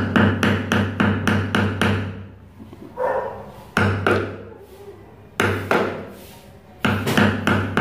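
Rapid knocking on the rim of a stuck plastic paint-bucket lid as a tool is struck and worked under its edge to pry it open: about five sharp knocks a second, in four runs with short pauses between.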